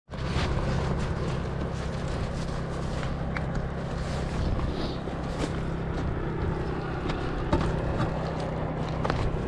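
A vehicle engine running steadily with an even low hum, with scattered light knocks and clicks over it.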